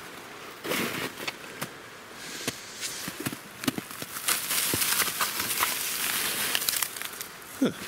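Footsteps crunching through snow, an uneven series of short crunches, with a rustling hiss for a few seconds in the middle.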